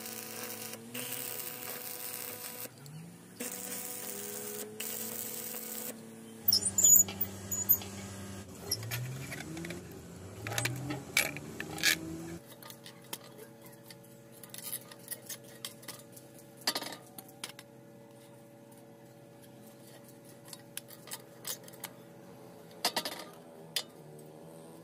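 Stick (arc) welding crackling and sputtering for the first several seconds, with short breaks in the arc. Later, a homemade lever shear cuts thin galvanized sheet steel, giving a few sharp metallic clicks and snips.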